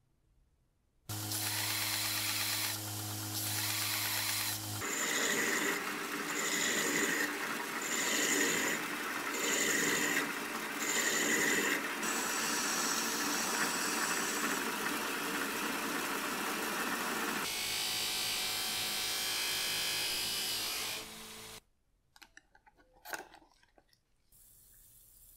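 A small metal lathe running while a small turned steel part spins in it and is worked and sanded with abrasive cloth, with a sound repeating about once a second for part of the time. It stops abruptly near the end, leaving a few faint clicks and a low hiss.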